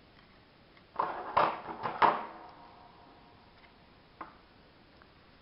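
Metal craft scissors being picked up and handled: a short clatter with a brief metallic ring about one to two seconds in, then a single sharp click near four seconds.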